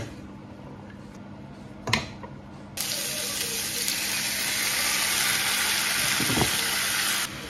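A single knock, then a steady rushing hiss that starts suddenly about three seconds in and cuts off suddenly shortly before the end.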